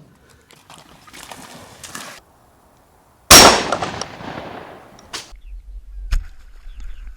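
A single loud gunshot about three seconds in, ringing out for about a second, after some faint rustling. Two smaller sharp knocks and a low wind rumble on the microphone follow.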